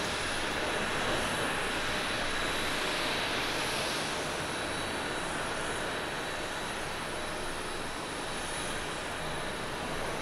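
ANA Boeing 737-800's CFM56 jet engines on the landing rollout along a wet runway: a steady jet noise with a thin high whine, swelling slightly a few seconds in.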